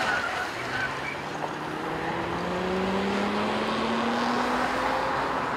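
Freeway traffic noise with a semi-truck passing close by. Its engine note rises slowly and steadily in pitch from about half a second in until near the end, as the truck speeds up.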